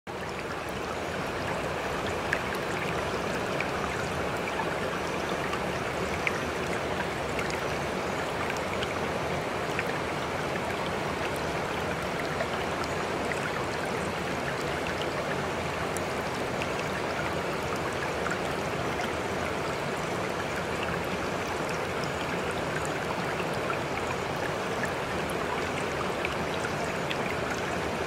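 Steady running water, like a flowing stream, with scattered small drip-like ticks throughout.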